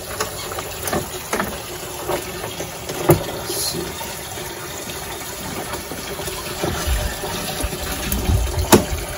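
Water from a garden hose running steadily into a plastic barrel test tank as it fills. A few sharp knocks come from the outboard's mount as the motor is lowered into the barrel, the loudest about three seconds in and another near the end, with some low thumps just before it.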